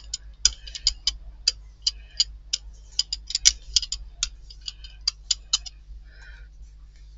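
Rubber brayer rolled back and forth over turquoise and white acrylic paint on a Gelli plate, the tacky paint crackling in quick, irregular clicks that die away about six seconds in.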